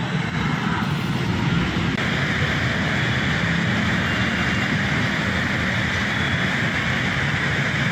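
Steady rumble of passing vehicles, growing brighter and hissier about two seconds in.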